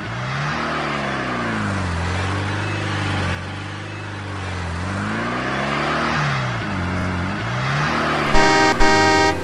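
A toy car's engine sound effect running, its pitch rising and falling repeatedly as if revving. Near the end comes a double car-horn toot.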